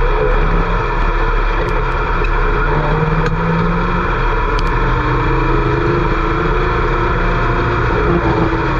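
Several dirt-track race car engines running at once, their pitches rising and falling as they go around the track.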